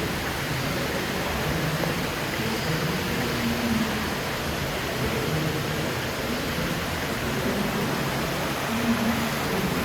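Steady rushing ambience of a boat ride through greenhouses: a constant hiss of moving air and water, with faint low hums coming and going underneath.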